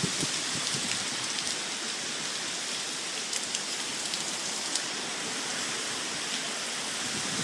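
Steady hurricane rain pouring down, an even, unbroken hiss with a few faint drop ticks.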